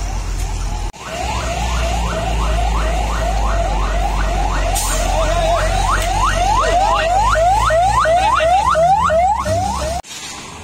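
Electronic alarm sounding a fast, even run of rising whoops, about three a second, over a steady low rumble. It starts abruptly about a second in and cuts off near the end.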